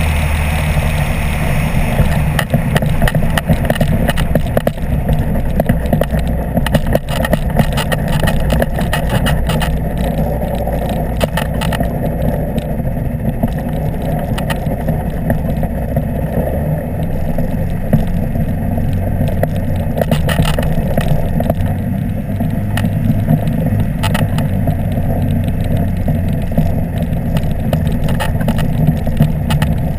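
Apollo Jet Star microlight trike's engine running steadily at low power as it taxis on the ground, with many short knocks and rattles throughout.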